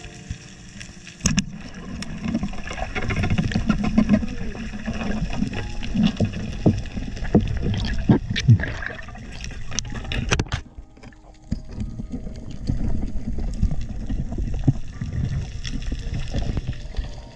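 Water sloshing and bubbling, with many sharp clicks and knocks scattered through it.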